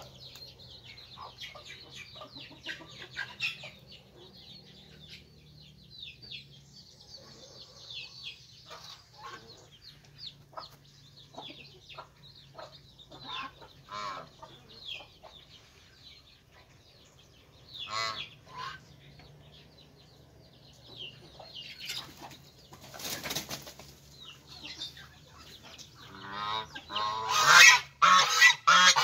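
A white duck beats its wings while clinging to wire mesh, over a steady run of small-bird chirping. Loud repeated calls from the geese and ducks come in near the end.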